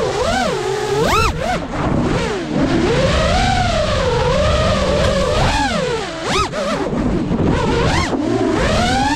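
FPV quadcopter's brushless motors and propellers whining, the pitch with its overtones swooping up and down continually as the throttle changes, with sharp quick swoops about a second in, around six seconds and near the end.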